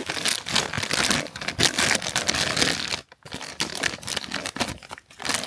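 Plastic and cardboard packaging crinkling and tearing as a figure is pulled out of its box: dense crackling for about three seconds, then sparser rustles and clicks.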